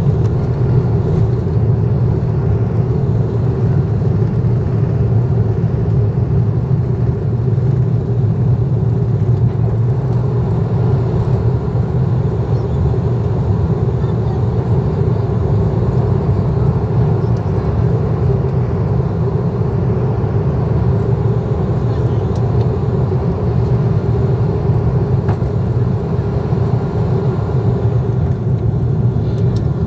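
Airbus A330-200 jet airliner at takeoff power: a loud, steady low rumble of engines and airflow with a steady hum above it, unchanging throughout.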